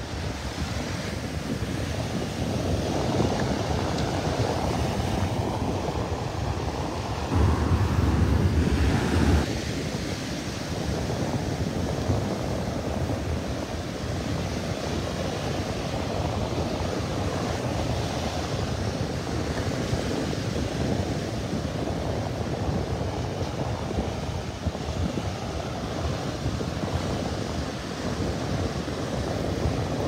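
Small Atlantic waves breaking and washing up the beach in a steady rush, with wind buffeting the microphone. About seven seconds in, a stronger gust gives a louder low rumble for about two seconds.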